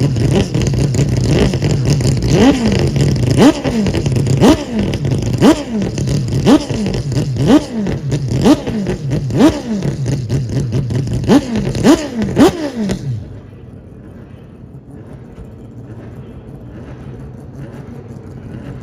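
Mazda 787B's four-rotor R26B rotary engine idling and being blipped about once a second, each rev shooting up in pitch and falling straight back. After about thirteen seconds the blipping stops and the sound drops to a much quieter steady rumble.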